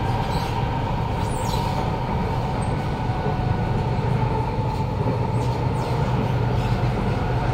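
Kawasaki Nippon Sharyo C751B metro train heard from inside the carriage while running along the track: a steady low rumble with a motor whine that sinks slightly in pitch, and a few faint high scrapes from the wheels.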